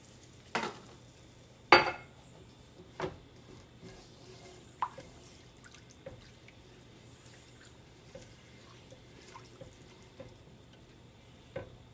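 Kitchen utensils tapping and knocking against a measuring cup and pan as brown sugar goes into a pan of orange juice and soy sauce, with small drips and ticks from the liquid in between. There are four sharper knocks in the first five seconds, the loudest about two seconds in.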